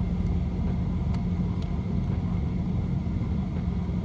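Steady low rumble of a car on the move, heard from inside the cabin, with an even hum under it. A couple of faint clicks come through about a second in.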